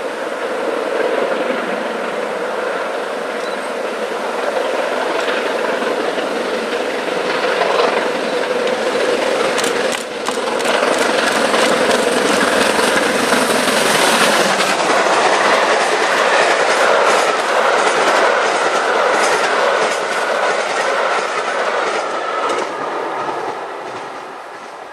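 Steam locomotive hauling a passenger train past on the main line. The noise builds from about ten seconds in, a run of rhythmic wheel clatter comes as the locomotive and coaches go by, and the sound fades near the end.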